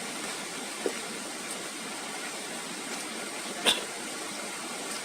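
Steady, even rushing of running water, with a faint tick about a second in and a sharper click a little past the middle.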